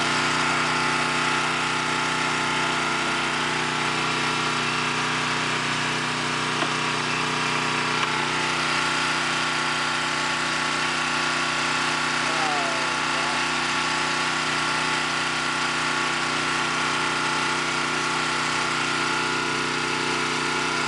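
An engine running steadily at idle: a constant hum with several fixed tones that does not change.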